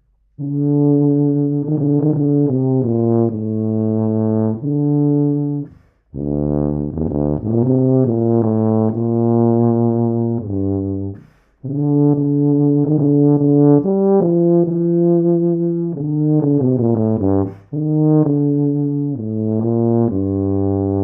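Wessex Anton TC491 rotary-valve C tuba playing a melodic solo passage: a run of separate notes in four phrases, with short pauses between them.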